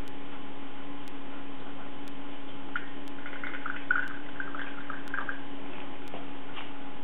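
Vinegar poured from a plastic bottle into a glass beaker, trickling and splashing for a couple of seconds starting about three seconds in, over a steady low hum.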